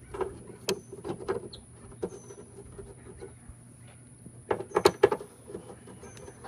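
Clicks and knocks of metal parts being handled while a tailgate latch and its bolts are fitted into a pickup tailgate, with a louder cluster of knocks about four and a half seconds in.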